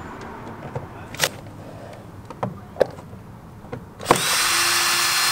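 An 18-volt cordless drill-driver undoing a Torx screw underneath a car door card: a few light clicks and knocks, then the motor runs with a steady whine for about a second and a half near the end.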